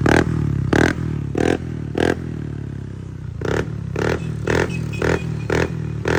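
Honda Click 160 single-cylinder scooter engine idling through an Apido Blue Tip aftermarket power pipe exhaust, blipped in short sharp throttle stabs about twice a second. The blips pause for about a second and a half in the middle, then start again.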